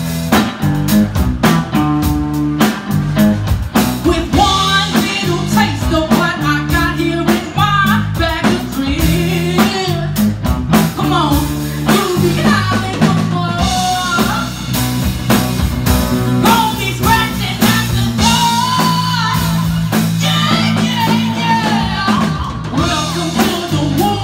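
Live blues-rock band playing: drum kit, electric bass and electric guitar, with a woman singing at times.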